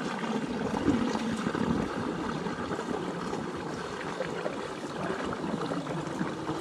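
Water running steadily, with a trickling sound.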